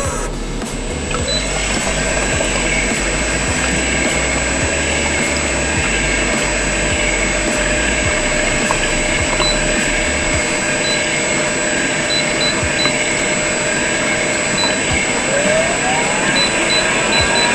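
Vacuum emulsifying mixer (PRIMIX AGI HOMO MIXER) running: a steady mechanical hum and hiss of motors and pump. About ten seconds in the low hum drops away, and a whine rises in pitch near the end as a motor speeds up.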